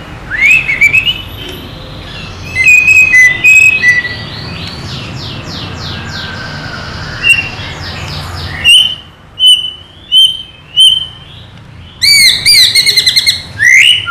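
White-rumped shama (murai batu) in excited, full song. It runs through varied phrases: rising whistles at the start, fast rattling runs, then a series of separate clear whistled notes about half a second apart, and a loud rapid trill near the end.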